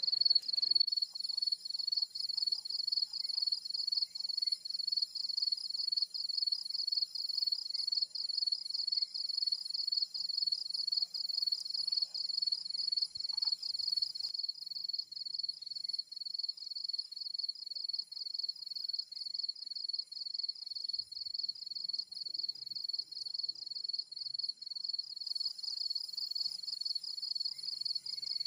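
Insect chirping from the forest: a high-pitched, steady trill that pulses about twice a second, typical of a cricket or cicada.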